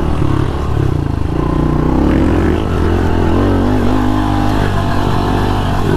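Pit bike engine running under the rider, revving up and down with the throttle as the bike winds along a trail, its pitch rising and falling several times.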